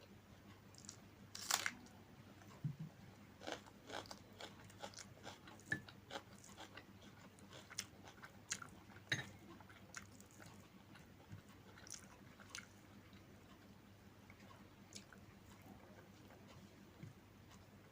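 A person eating close to the microphone, chewing and biting with scattered crisp crunches and mouth clicks. The crunches come thickest in the first half and thin out later.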